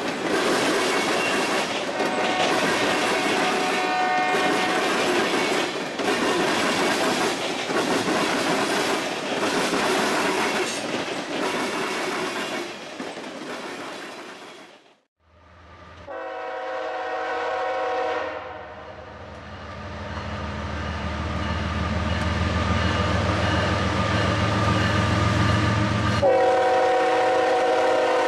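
A freight train's cars rolling past, a steady noise of steel wheels with clacks over the rail joints, fading away. Then a CSX ES44AC-H diesel locomotive approaching: a horn blast of a few seconds, its engine rumble growing louder as it nears, and another horn blast near the end.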